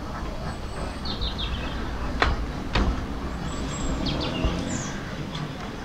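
Steady low rumble of a narrow-gauge tram running on its track, with two sharp clicks about half a second apart near the middle. Birds chirp briefly early on the window and again near the end.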